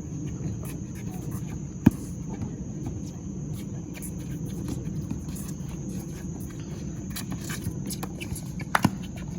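Ambience of an outdoor basketball game: a steady murmur of low background chatter, with one sharp knock about two seconds in and two quick knocks near the end.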